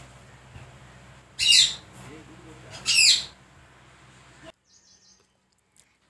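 Indian ringneck parakeets calling: two loud, high calls that fall in pitch, about a second and a half and three seconds in, then a few faint short calls near the end.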